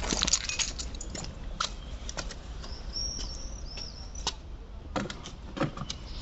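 Scattered light clicks and knocks, with two short high chirps about three seconds in; no engine cranking or running is heard.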